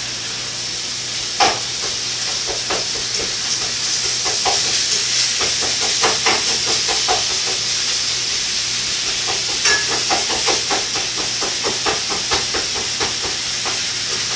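Ground beef sizzling as it browns in a pan on the stove: a steady frying hiss, broken by irregular clicks and scrapes of a utensil against the pan.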